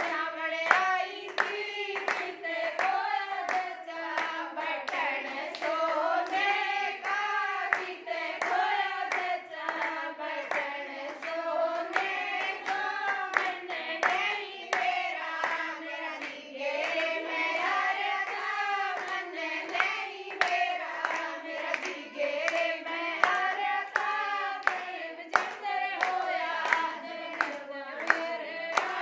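Women singing a Haryanvi jachcha geet, the folk song for a new mother and baby, with hand claps keeping a steady beat throughout.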